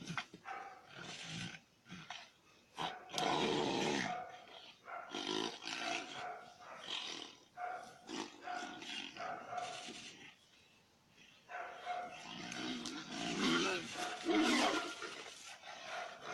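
Animals growling and snarling in a fight, in irregular bursts, with a short lull about two-thirds of the way through.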